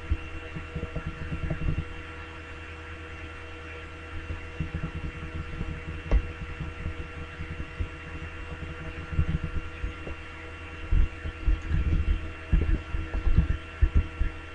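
Steady electrical hum on the recording microphone, made of several steady tones at once, with irregular soft low thumps coming in clusters.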